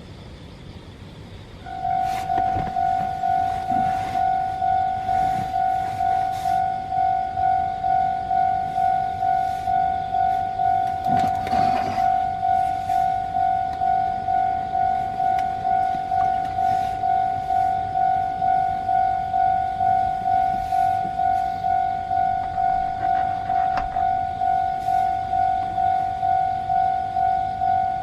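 Japanese level-crossing warning bell starting up about two seconds in and ringing on in an even, rapid ding at about two strikes a second: the crossing is closing for an approaching train.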